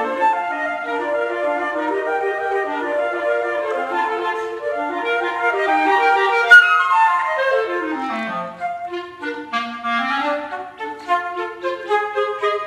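Flute and B-flat clarinet playing a duet in quick, overlapping notes. Past the middle, a long run falls steadily down into the low register, and then the notes turn short and detached.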